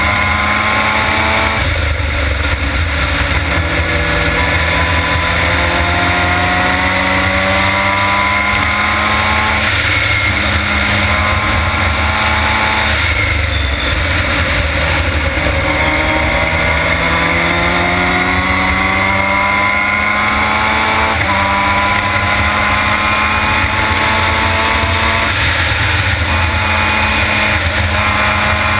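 Formula Mazda race car's rotary engine at full throttle, heard from onboard, its pitch climbing steadily through each gear and dropping briefly at each of several upshifts. A constant low rumble of wind and road noise runs underneath.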